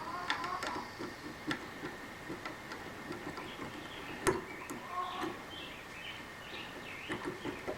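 Irregular small metal clicks and ticks, with a few light squeaks, as a broken tap is wiggled back and forth to work it out of a threaded hole. The sharpest click comes just past the middle.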